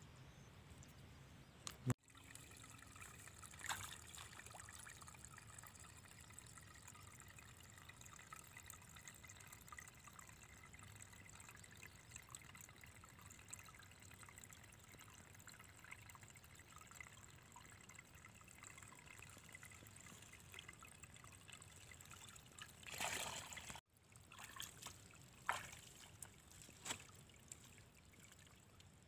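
Faint trickle of shallow water running through a narrow muddy channel, with a few short knocks now and then.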